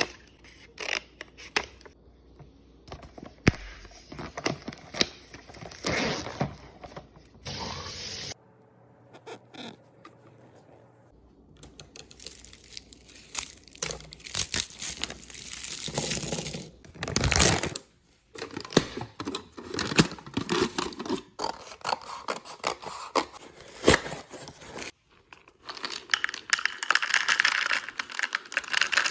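Restocking a mini fridge: packaging rustling and tearing, with many sharp clicks and knocks as items are handled and set in place, broken by a few brief pauses.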